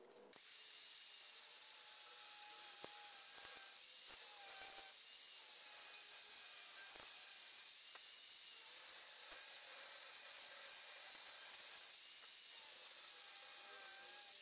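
DWT angle grinder cutting through rusty square steel tubing: a steady grinding hiss with a faint whine that wavers as the disc works through the metal.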